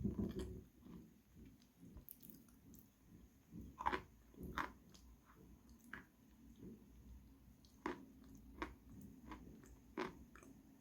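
Close-miked chewing of Khrapovsky chalk with sticky Astana 2 paste: soft, squishy mouth sounds with scattered sharp clicks, the loudest about four seconds in.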